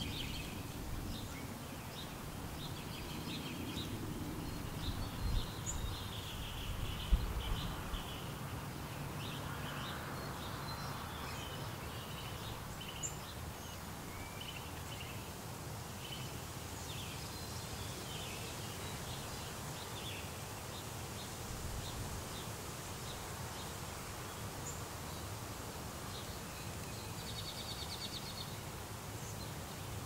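Small birds chirping and calling on and off in the trees, over a steady hiss from the camera's automatic gain control and a low background rumble. A couple of brief knocks stand out about a quarter of the way in.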